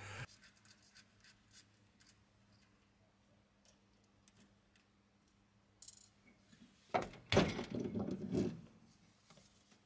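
Lathe chuck being worked off the mounting studs of a mini lathe's spindle flange: a few faint ticks, then about seven seconds in a second and a half of metal rubbing and scraping as the chuck slides forward.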